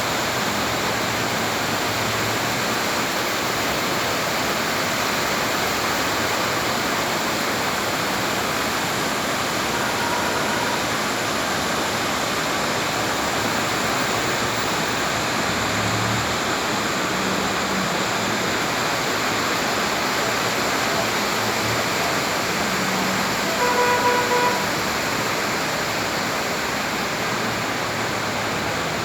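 Heavy rain falling steadily, a dense even hiss. A short pitched tone sounds faintly about ten seconds in and louder about 24 seconds in.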